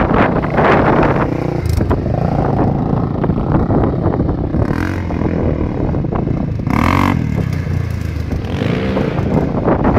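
Sport ATV engines running and revving, the engine note rising and falling a few times.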